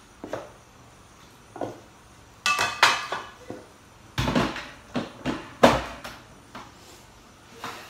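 Clatter of kitchen items handled on a worktop: a string of separate metal and plastic knocks, loudest in a cluster a few seconds in, as the stainless grinder cup is set onto the blender base.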